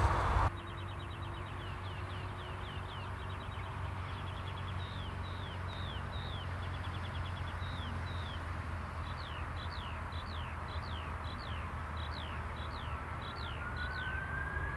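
Birds chirping over and over, short downward-sweeping calls and quick ticking trills, over a steady low rumble. Near the end, a rising whine begins: a jet engine spooling up.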